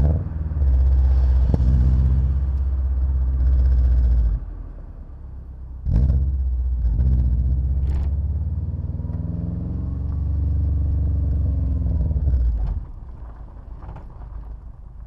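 Car driving at speed: a heavy low rumble of wind and road noise, broken by a few sharp knocks and a pitch that rises and falls in the middle. The rumble drops away sharply near the end.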